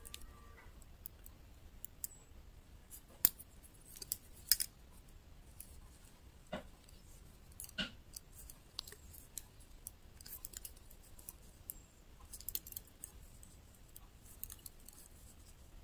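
Thin metal double-pointed knitting needles clicking and tapping against each other at irregular intervals as stitches are knitted in the round.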